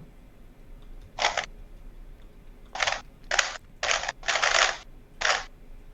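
A speedcube being turned in quick bursts: six short runs of rapid clicking, the longest about half a second, with pauses between them.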